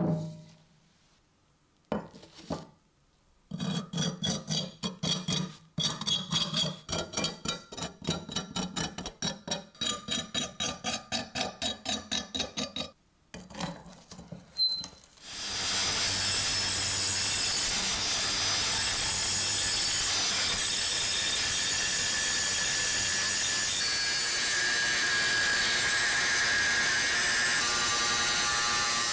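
A knock at the start, then about ten seconds of quick rhythmic scraping strokes, roughly two to three a second. About halfway through, an angle grinder starts and runs steadily to the end, its disc grinding into the thick rust on an antique machete blade.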